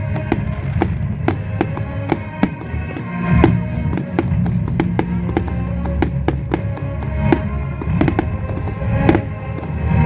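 Fireworks bursting and crackling in an irregular run of sharp bangs, over loud music.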